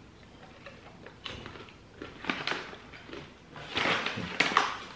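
Snack bag crinkling and rustling as it is handled, in short bursts that grow louder and denser near the end.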